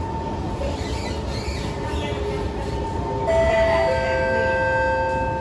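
Interior of a Kawasaki C151 metro train at speed: a steady rumble of wheels on rail with a constant whine from the traction equipment. About three seconds in, a two-note falling chime sounds over it.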